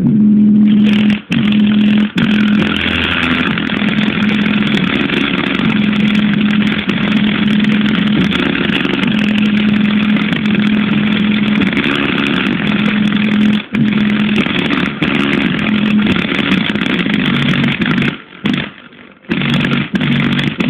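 Speaker box playing bass-heavy music loud and badly distorted, its held bass notes changing pitch under a harsh, engine-like buzz. It cuts out briefly a few times and breaks up into stops and starts near the end.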